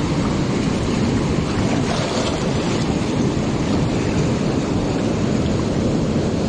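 Surf breaking on a rocky reef, a steady wash of noise with no single loud event, mixed with wind on the microphone.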